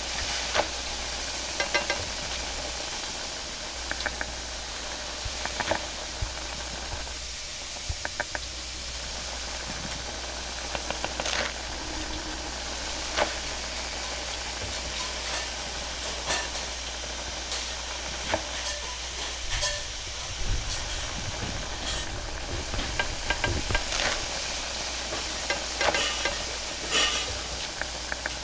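Flatbreads frying on an oiled flat steel griddle: a steady sizzle and hiss, with scattered sharp clicks and knocks. A steady low hum runs underneath.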